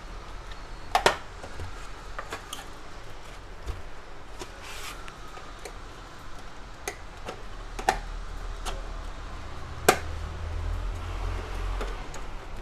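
Sharp plastic clicks and knocks from the printer's housing as its side cover is pried off its clips: a handful of separate snaps, the loudest about a second in and again near ten seconds, over a low steady background rumble.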